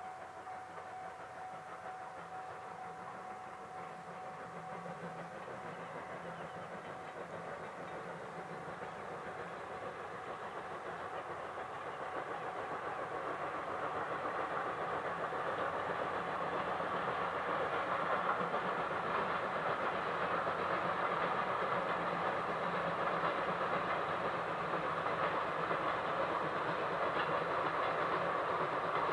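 Steam locomotive C57 180, a JNR Class C57, running with its train of coaches along the line, the sound growing steadily louder as it approaches.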